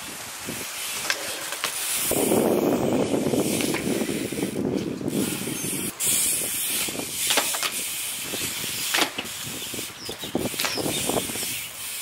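BMX bike riding on concrete: tyres rolling, with a long rough scrape from about two to six seconds in, typical of steel pegs grinding along a concrete ledge. Scattered knocks and clicks from the bike come before and after it.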